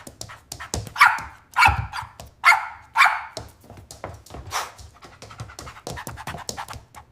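An animal giving a series of short calls that fall in pitch, the loudest five in the first half, among quick clicking sounds.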